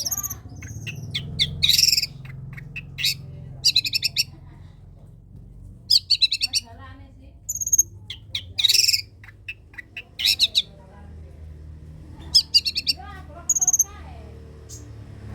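Long-tailed shrike (cendet) singing in short bursts of rapid notes every second or so, with a few high thin notes between them, over a steady low hum.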